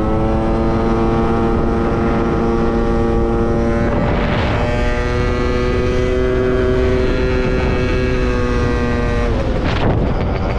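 Gilera Runner 180 scooter's two-stroke engine held at steady high revs under throttle, with wind noise on the microphone. About four seconds in the note briefly breaks, then holds steady again. Near the end the throttle closes and the engine note falls away.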